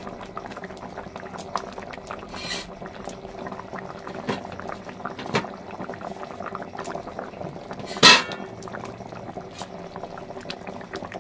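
Fish curry gravy boiling in a pan, bubbling and popping steadily as fried fish pieces are slipped into it. A sharp, louder sudden sound about eight seconds in.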